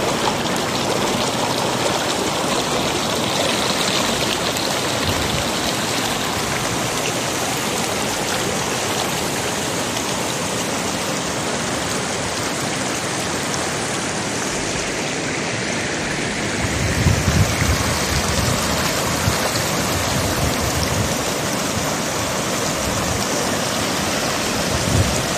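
Shallow mountain stream running over rocks: a steady, even rush of water, with a brief low rumble about two-thirds through.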